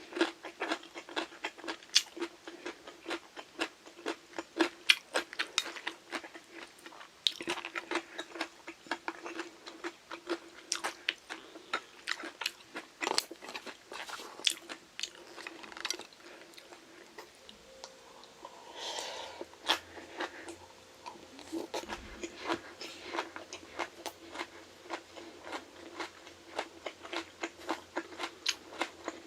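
Close-up chewing and biting of crunchy Korean side dishes, with rapid crisp crunches throughout and a short lull about two-thirds of the way through. A faint steady hum sits underneath.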